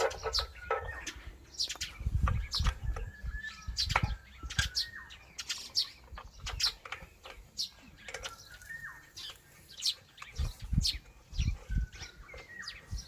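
Irregular sharp clicks and taps throughout, with short bird chirps now and then and a few low bumps.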